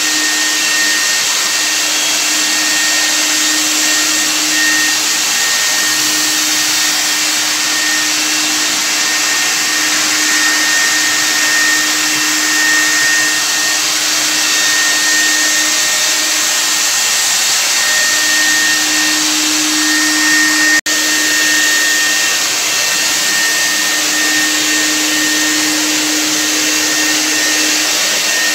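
Corded electric cold fogger spraying disinfectant mist: its blower motor runs steadily with a loud hiss. The sound breaks off for an instant about two-thirds of the way through.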